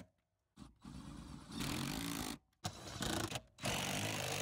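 Cordless drill with a socket running in three short bursts, tightening the bolts that hold a truck seat to the floor; each burst cuts off abruptly.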